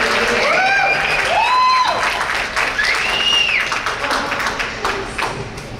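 Audience applauding with several whooping cheers, the clapping thinning out near the end.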